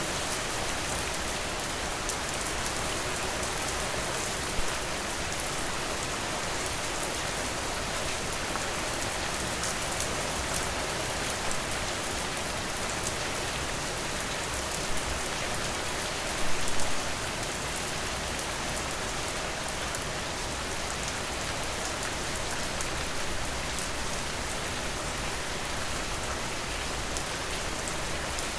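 Steady rain falling, an even hiss of drops on surfaces, with a few brief louder pops, a short cluster of them about seventeen seconds in.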